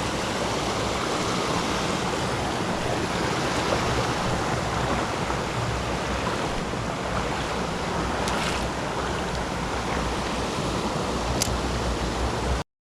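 Rushing creek water, a steady wash with a low rumble of wind buffeting the microphone; it cuts off suddenly near the end.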